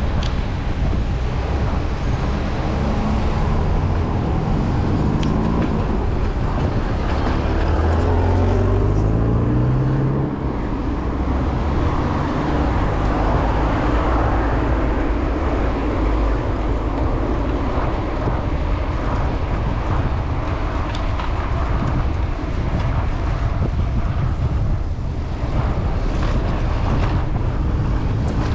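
Street traffic noise with a constant low rumble. About six seconds in, a motor vehicle's engine rises in pitch as it accelerates.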